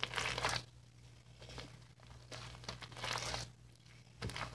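Hands stretching and kneading fluffy diaper-polymer cloud slime, which crackles and tears in bursts. The loudest bursts come at the very start and again about three seconds in.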